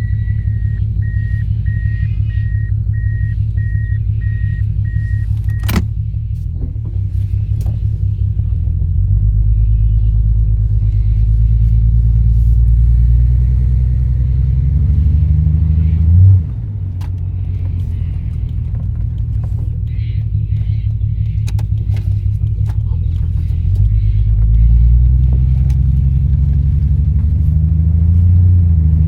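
Turbocharged Toyota Supra inline-six running through an HKS straight-through exhaust with a larger downpipe, a deep rumble under way: the revs climb steadily, drop sharply about sixteen seconds in, then climb again near the end. The engine has a misfire on one cylinder that new plugs, leads and coils have not cured, which the owner thinks may be a blocked injector. A repeating high beep sounds for the first six seconds and ends with a sharp click.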